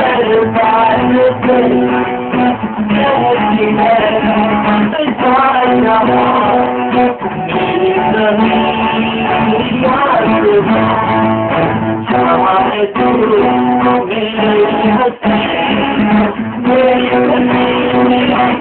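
Guitar strumming chords and picking the song's melody.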